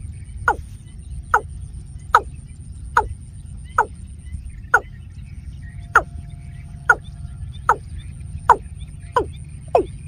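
Watercock calling: a steady series of short, falling notes, about one every second, over a low steady rumble.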